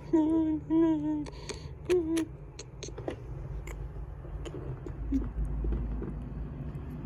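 A high-pitched person's voice in drawn-out notes for about the first two seconds, then a steady low hum with a few faint clicks.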